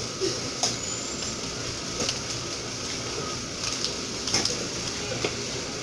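Steady hiss of shop background noise, with a handful of short sharp clicks and knocks scattered through it.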